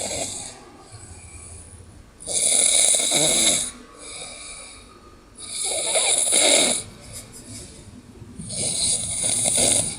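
A sleeping person snoring loudly: a harsh, rasping snore about every three seconds, three in all, plus the tail of one more at the very start.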